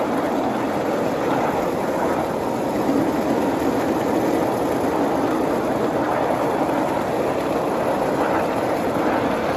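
A 7.5-inch gauge ride-on live steam train rolling along the track, heard from one of its riding cars: a steady, even rumble of wheels on rail with no break.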